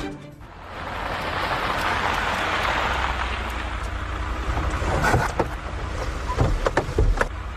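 Steady car noise, engine rumble and road or tyre hiss, building up within the first second. Several sharp clicks and knocks come in the last few seconds.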